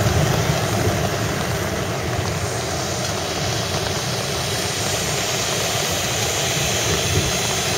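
Two tezutsu, hand-held bamboo tube fireworks, spraying sparks with a steady rushing hiss and a deep rumble.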